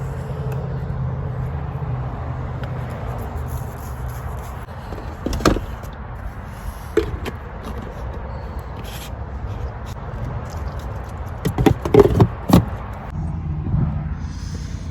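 A steady low hum with scattered knocks and clatters of things being handled, loudest in a quick run of several knocks about twelve seconds in.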